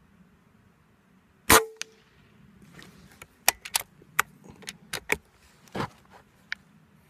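A .25 Benjamin Marauder PCP air rifle fires one shot about a second and a half in, followed by a run of about ten sharp clicks as the rifle is handled and reloaded.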